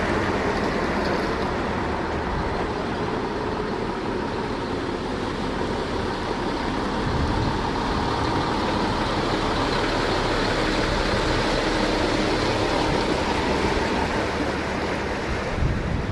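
Steady mechanical noise of a running engine, with a faint whine held through it.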